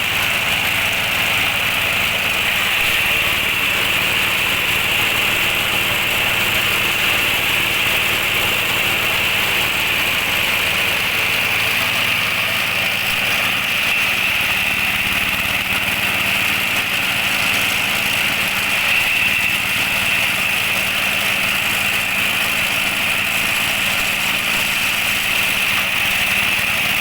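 Diesel-powered compost shredder, an 8 HP diesel engine driving the shredder rotor and blower, running steadily and loud with no change in speed.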